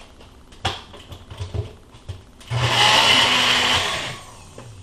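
Single-serve cup blender running briefly, about a second and a half, whizzing a protein shake, after a few knocks at the counter.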